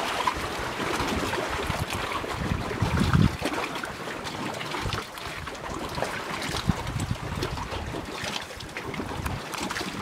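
Wind buffeting the microphone, with the gusts strongest in the first three seconds, over choppy water splashing beside a floating fishing raft. Small clicks and knocks are scattered through it.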